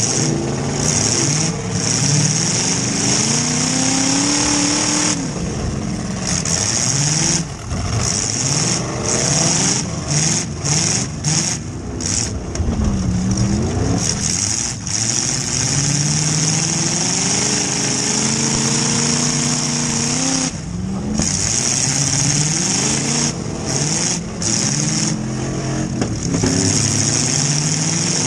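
Demolition derby car's engine, heard from inside the stripped-out cabin, revving up and down again and again as the car is driven around, its pitch rising and falling, over a steady high hiss.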